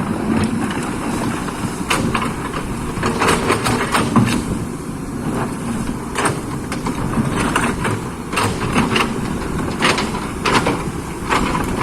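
Excavator diesel engine running steadily, with frequent sharp metallic clanks and knocks scattered irregularly throughout.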